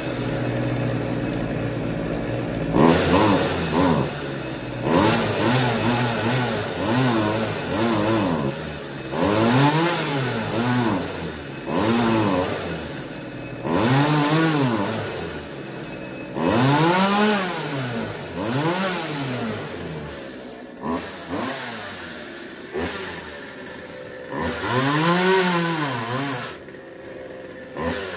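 Partner 350 two-stroke chainsaw running, its throttle blipped again and again. The engine pitch rises and falls about a dozen times, each rev lasting a second or two, after a few seconds of steadier running.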